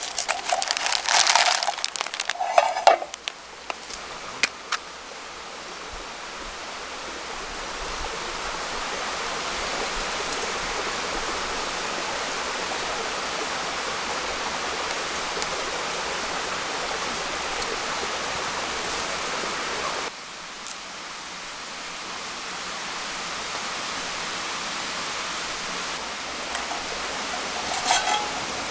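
A few seconds of clattering and rustling handling noises, then a stream running with a steady rushing sound. About twenty seconds in the water sound drops suddenly and swells back up.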